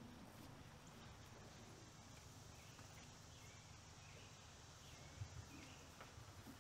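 Near silence: faint open-air ambience, with a few faint chirps in the middle and a soft knock about five seconds in.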